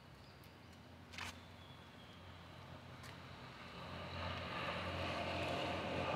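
Road traffic on a nearby city street, swelling as a vehicle draws near from about four seconds in. There is a short sharp click about a second in.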